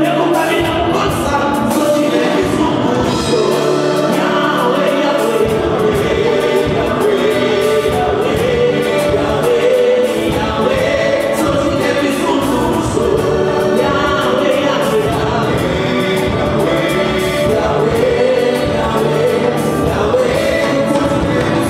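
Live gospel music: a male vocal group singing in harmony into microphones, over band accompaniment with a steady beat.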